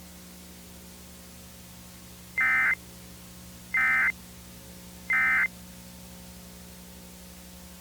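Emergency Alert System end-of-message signal: three short, high-pitched bursts of SAME digital data tones, about a second apart, marking the end of the alert. They play over a steady low hum.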